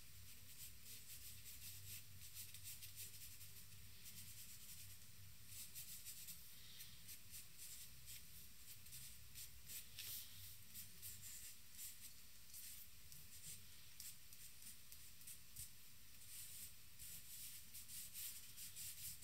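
Charcoal stick scratching and rubbing across drawing paper in quick, irregular strokes, faint, over a low steady hum.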